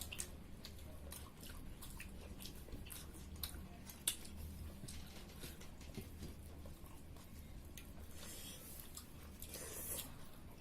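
Mealtime eating sounds: chewing and many small scattered clicks and taps of eating pork curry with rice, over a low steady hum.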